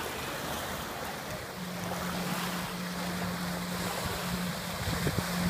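Small waves washing at the shore with wind on the microphone. From about a second and a half in, the steady hum of a jet ski's engine running on the water.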